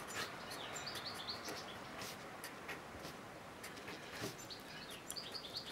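Felt-tip marker writing on paper: quick scratchy strokes with short high-pitched squeaks as the tip drags across the sheet, a cluster early and another near the end.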